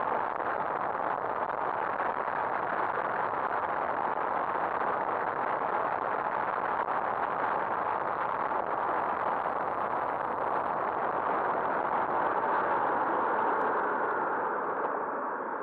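Honda Twister motorcycle riding at highway speed: a steady rush of wind and engine noise on the bike-mounted camera, easing slightly near the end.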